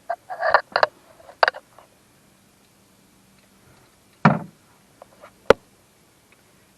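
Hand tools being handled while working on a utility vehicle: a few scattered clicks and knocks, a cluster in the first second and a half, then a louder knock and a sharp click near the end.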